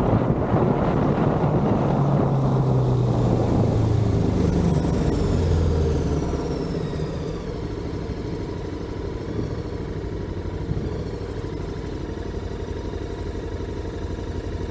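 Motorcycle on the move with heavy wind noise on the microphone. Around six seconds in, the engine note falls and the wind drops as the bike slows, leaving the engine running at low revs.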